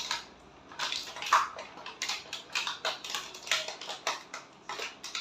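Hands handling a plastic toy and its packaging: a run of irregular light clicks, knocks and rustles, several a second.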